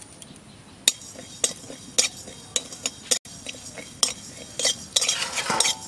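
Spatula scraping and clinking against a dry aluminium kadai as cumin and coriander seeds are stirred and dry-roasted, in a series of sharp strokes that close up into a quick run near the end.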